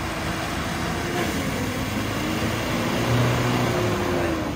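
A vehicle engine running steadily, its pitch drifting gently up and down, over a noisy outdoor hiss; it swells a little about three seconds in.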